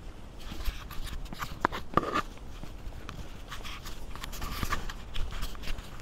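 Footsteps of someone walking, irregular scuffs and taps over a low steady rumble.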